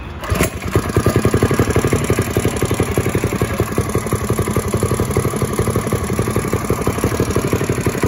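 Small single-cylinder four-stroke engine of a 1970 Bird minibike running steadily with an even, rapid exhaust beat, which the owner calls running good. A sharp click comes about half a second in, after which the engine is louder.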